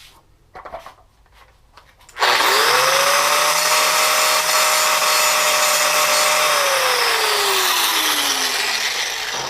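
A few light knocks, then about two seconds in an angle grinder starts and grinds on steel, loud, its motor whine climbing quickly to a steady pitch. Past the middle the whine falls away slowly as the motor winds down, while the grinding noise carries on.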